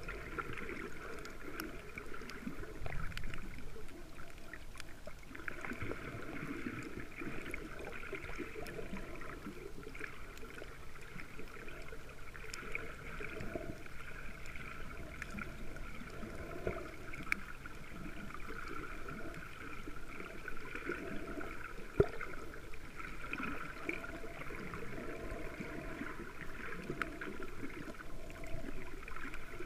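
Muffled underwater water noise picked up by a camera submerged over a coral reef, with scattered faint clicks and one sharper click about two-thirds of the way through.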